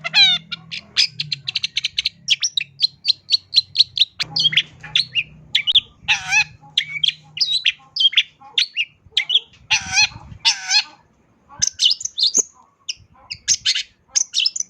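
Long-tailed shrike (cendet) singing a varied song packed with mimicked phrases: quick runs of short, high chirps at about five a second, then changing phrases with harsher, fuller notes mixed in.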